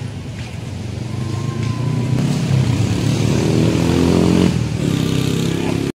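A motor vehicle's engine passing on the street, growing louder over a few seconds and then easing off slightly before the sound cuts off.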